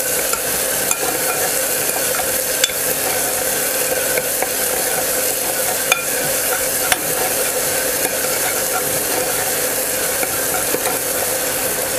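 Chopped onion and ginger-garlic paste sizzling in hot oil while a metal spoon stirs and scrapes it around a pressure cooker, with a few sharp clicks of the spoon against the pot. A steady hum sits underneath.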